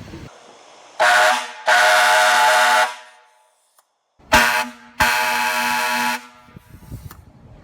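Hadley E-Tone air horn blasting four times in two pairs, each pair a short blast followed by a longer one of about a second.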